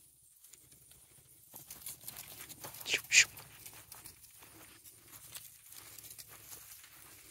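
Footsteps rustling through grass and dry fallen leaves, starting about a second and a half in and going on as a run of soft crunches. About three seconds in come two quick, sharper scuffs, the loudest sounds.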